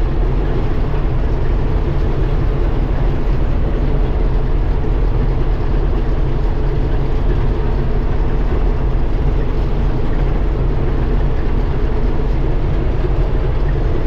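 Old John Deere 4400 combine running steadily, a loud even engine and machinery drone.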